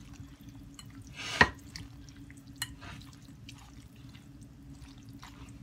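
A spatula tossing dressed pasta salad in a glass bowl: many small wet clicks, with one louder knock about a second and a half in, over a faint steady hum.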